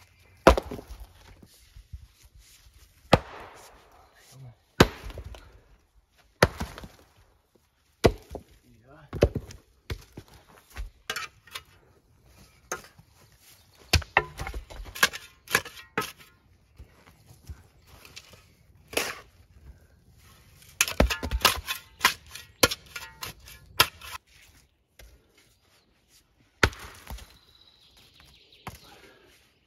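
Irregular sharp knocks of sandstone: a hammer striking sandstone and breaking it into gravel-sized rubble, with stones clacking as they are dropped and set down. The blows come in loose clusters, busiest in the middle of the stretch.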